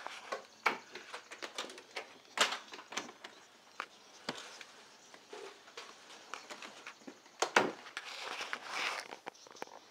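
Handling noise from a hand-held camera being moved about: an irregular run of knocks, clicks and rustles, with louder knocks about two and a half seconds in and again about seven and a half seconds in.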